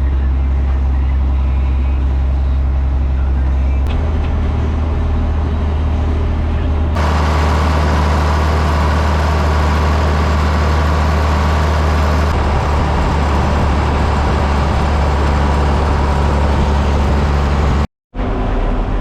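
Farm tractor engine running steadily under load, a strong low hum with overtones. Its sound shifts abruptly twice in the first half and cuts out for a moment near the end.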